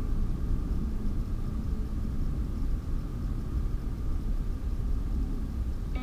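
Steady low outdoor rumble with a faint, steady high hum above it.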